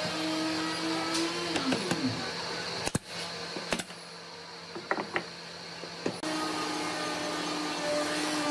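An electric power tool's motor running steadily, then winding down with a falling pitch about two seconds in. A few sharp knocks and clicks follow, and the motor starts up again abruptly about six seconds in.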